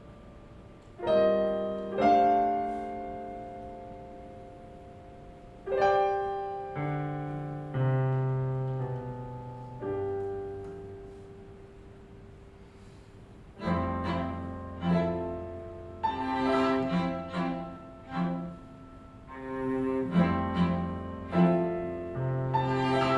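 String quartet and piano playing an instrumental arrangement: sparse piano chords over long held low cello notes, then about halfway through the ensemble picks up with a rhythm of short repeated notes over sustained bass.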